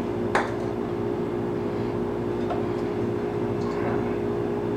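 A steady mechanical hum with a low pitched tone, and one sharp click about a third of a second in as a pepper shaker is set down on the counter.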